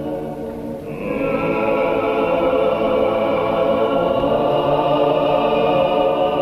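Choir singing a slow funeral chant of long held notes; a higher voice part comes in about a second in and the singing grows fuller.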